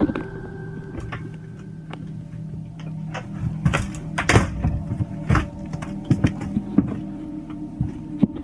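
Irregular knocks and clicks as someone moves through a dark airliner cabin wearing a body camera, over a steady low hum. The knocks come thickest in the middle of the stretch.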